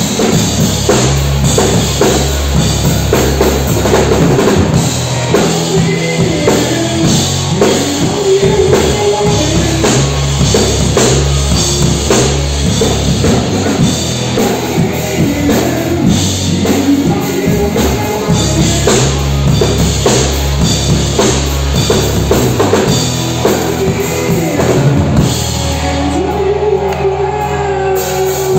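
Rock music from a live band: a drum kit keeps a steady beat over low bass notes that change in steps, with a sustained melody line near the end.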